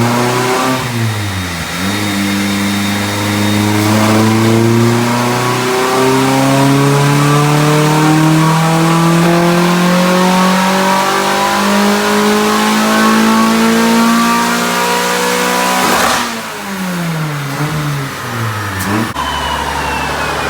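Honda Prelude's H22A4 2.2-litre four-cylinder, straight-piped headers into a muffler, run on a dyno. It climbs steadily in revs through a long full-throttle pull. Near the end the throttle shuts suddenly and the revs fall away to a low steady run.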